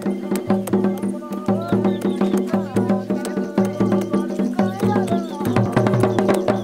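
Background music: a steady low drone under a bending melody line, with a quick, regular tapping beat.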